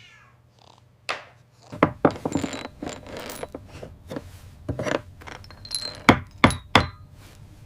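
Irregular knocks, taps and small metallic clinks, as of tools and small objects being picked up and set down, with a brief rustling rush about two seconds in.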